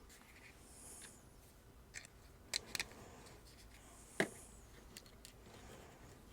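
A few faint, sharp clicks and taps of small hand tools and plastic toy parts being handled on a workbench: a pair close together about halfway through, and the loudest a little later.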